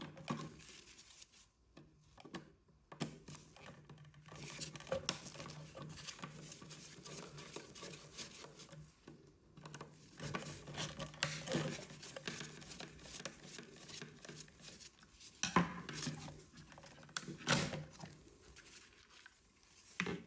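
Small metallic clicks, scrapes and rustles as a screwdriver loosens the terminal screws of a double wall socket and the copper cable cores are pulled out, with a few sharper knocks near the end.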